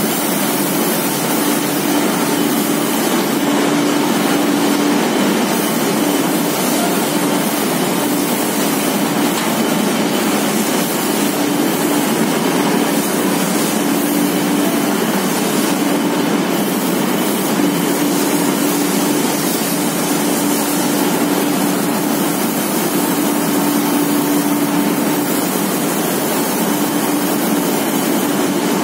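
Cotton-waste recycling machines running: a steady, loud mechanical din of the opening and cleaning line with its blower fans and belt drives. A low hum in it swells and fades every second or two.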